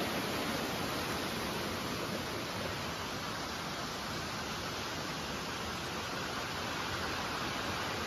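Steady rush of running water from a shallow stream flowing over rocks.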